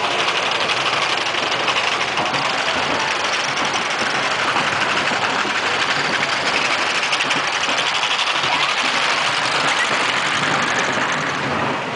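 Small kiddie roller coaster train running along its track, a steady rattle and rumble of the wheels heard from a seat on board the moving train.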